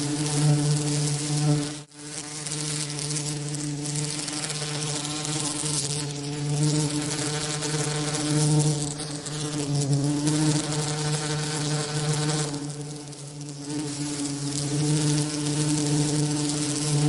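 Continuous buzzing of bee wings, a steady low hum with a row of overtones, layered with a broad hiss that reaches high up. It cuts out for a split second about two seconds in.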